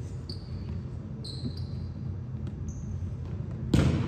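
Sneakers squeaking on a gym floor, several short high squeaks, over the low rumble of a large hall. Near the end comes one loud smack of the volleyball.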